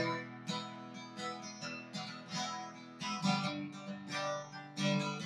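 Solo acoustic guitar, without voice: strummed chords and picked notes struck about two times a second, each left to ring.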